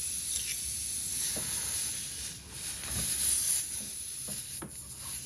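Air hissing steadily out of a nail puncture in a motorcycle's rear tire, easing off near the end.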